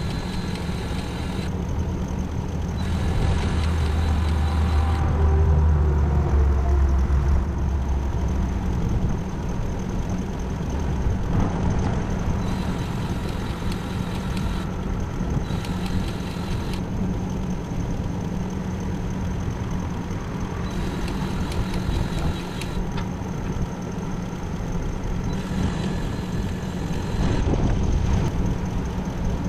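Kubota V3600T four-cylinder turbo diesel on an Altec DC1317 wood chipper running steadily after a restart, with a light belt squeal over the engine note.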